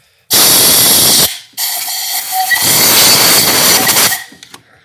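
Aerosol brake cleaner spraying into a freshly tapped head bolt hole in the engine block, flushing out the tapping chips and oil so the hole is dry for the thread insert. It goes in two loud spurts of hiss, a short one and then a longer one.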